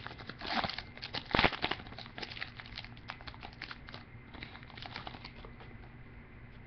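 Trading-card pack wrapper being crinkled and torn open, with cards handled: irregular crackles, loudest in the first couple of seconds, then dying down to faint rustling.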